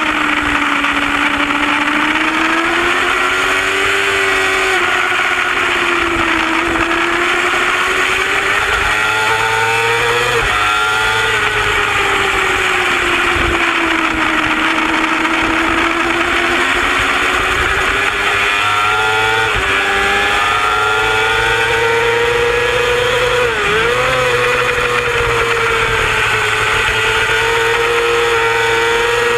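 Racing sportbike engine heard from on board at high revs, its note rising under acceleration and falling under braking, with quick gear changes breaking the pitch several times. A steady rush of wind runs underneath.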